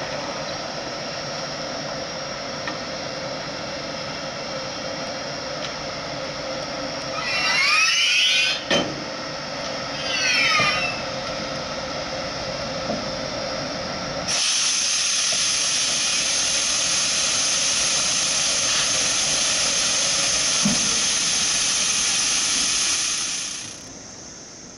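ÖBB Class 1116 Taurus electric locomotive standing with a steady machinery hum, with two short squealing sweeps about eight and ten seconds in as it buffs up against the coaches. From about the middle, a loud steady hiss of compressed air runs for about nine seconds as the coupled train's brake line is charged, then cuts off near the end.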